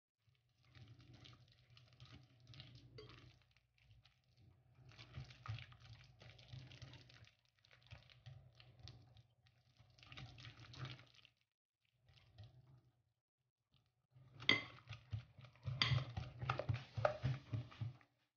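Wire whisk mashing and stirring banana in a glass mixing bowl, its wires clicking and scraping against the glass in rapid strokes. The whisking comes in several spells with short pauses between them and is loudest over the last few seconds.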